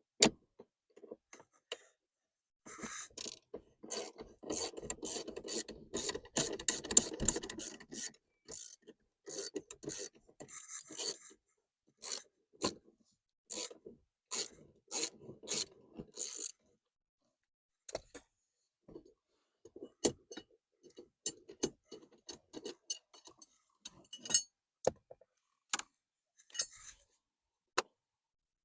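Hand work on a car's steering column turn-signal assembly: plastic and metal parts clicking, scraping and rattling. It starts with a few seconds of dense rattling and scraping, then gives way to scattered sharp clicks and knocks.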